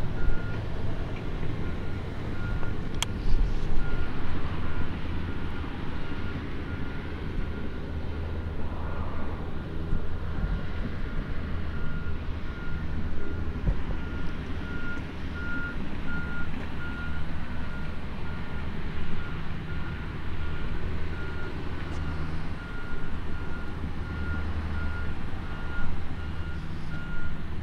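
A vehicle's reversing alarm beeping in an even series of short high beeps over a steady low engine rumble.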